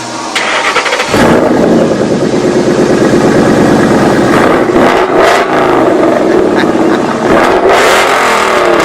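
A car engine revving loudly, starting suddenly about a second in, its pitch rising and falling several times.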